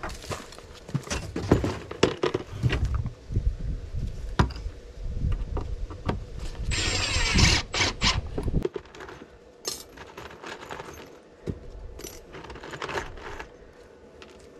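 Metal hinge hardware and tools handled on a plywood lid, making scattered clinks and knocks. About halfway through, a cordless drill runs for about a second, driving a screw into a hinge, followed by a few lighter clicks.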